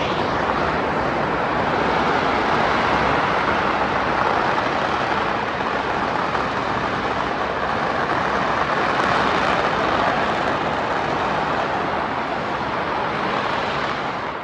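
A long string of firecrackers going off in a dense, unbroken crackle, with no gap between the bangs. It fades out near the end.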